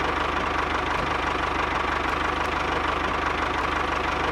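A motor running steadily with a fast, even knocking rhythm.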